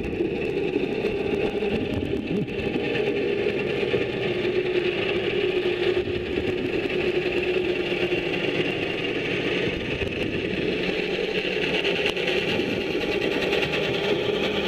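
Underwater propeller-polishing machine running steadily, heard through the water as a constant drone with a low hum and a higher whine.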